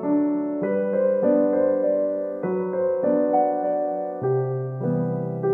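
Background piano music: a gentle melody over chords, the notes changing about every half second.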